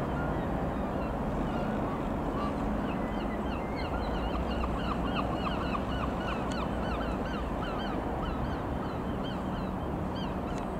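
A flock of birds calling in quick, repeated calls that start a couple of seconds in and keep up almost to the end, over the steady low drone of an Evektor EV-97 TeamEurostar light aircraft's engine flying overhead.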